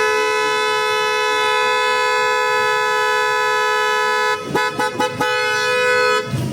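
Flosser car horn sounding a long held blast of two close pitches together. Near the end it breaks into about four quick short toots, then gives another held honk of about a second that cuts off.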